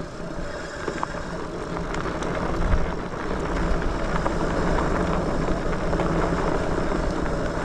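Lectric XPeak 2.0 electric bike riding on a dirt trail: tyres rolling over dirt with a steady motor hum, getting louder over the first couple of seconds. A single knock comes about three seconds in.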